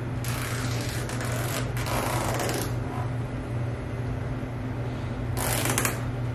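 Adhesive backing film being peeled off the tape of a new windshield weather strip: a rasping, ripping sound in three pulls, two in the first few seconds and one near the end.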